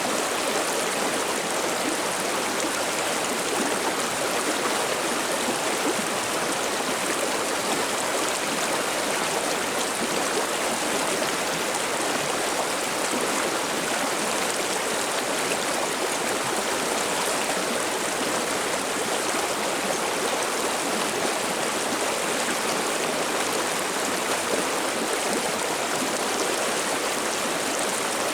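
River water babbling steadily over stones, a constant even rush with no breaks.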